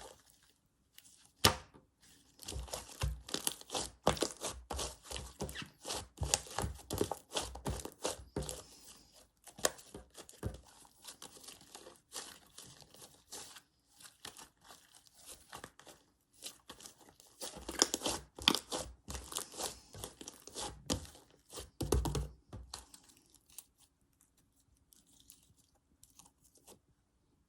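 Slime being stretched, folded and squeezed by hand, giving dense crackling and popping as trapped air bursts and the slime tears. The sounds thin to a few faint clicks in the last few seconds.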